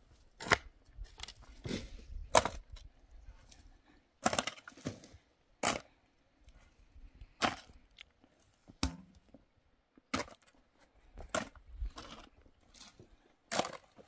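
Long-handled digging tool striking and scraping into hard, stony dirt while a trench is dug: sharp, uneven strikes about once a second, with short scrapes of soil between them.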